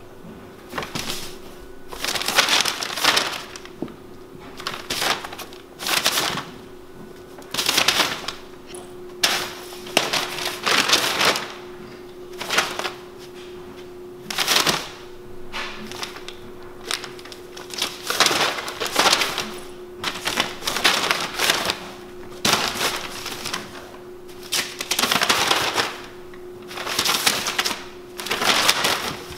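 Sheet of brown kraft paper crinkling and rustling in repeated bursts a second or two apart as kittens scramble and pounce on it, over a steady low hum.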